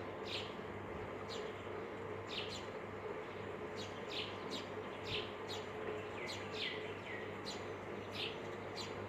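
A bird chirping repeatedly: short high chirps, each falling in pitch, about one a second, over a steady low hum.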